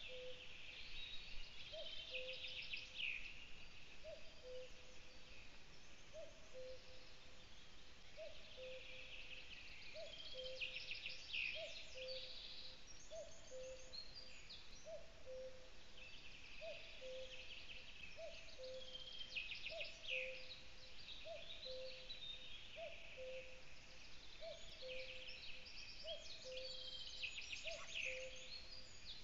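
Forest birdsong: one bird repeats a low two-note call, the second note lower, about once a second, while other birds sing bursts of higher trills and chirps.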